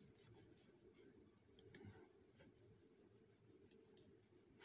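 Near silence: faint room tone with a steady high-pitched whine and a few faint clicks.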